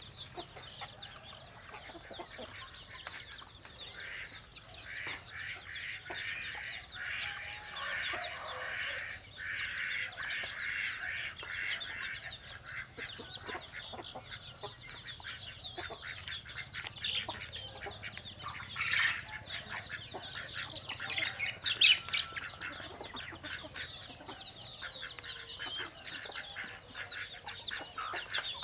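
A flock of chickens clucking and cheeping, with many short calls overlapping throughout. About three-quarters of the way through there is one sharp click or knock, the loudest sound.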